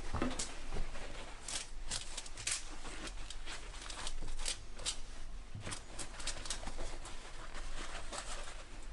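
Paper towels and aluminium foil being crumpled and gathered by hand: irregular crinkling and crackling.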